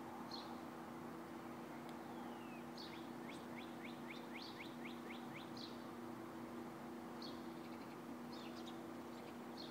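Small songbirds chirping, with a quick run of about ten downward-sliding notes in the middle, over a steady low hum.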